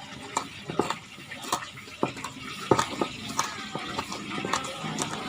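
Kitchen utensils clinking and knocking irregularly, about two sharp clicks a second, over a steady hiss of fish frying in oil.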